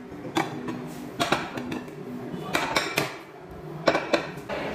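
Ceramic dinner plates clinking against each other as they are stacked into a pile, with about seven sharp clinks spread through.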